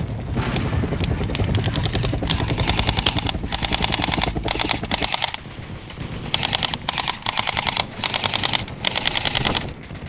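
Automatic gunfire in about eight short bursts of rapid, evenly spaced shots with brief gaps between them, over a low rumble in the first half; it stops just before the end.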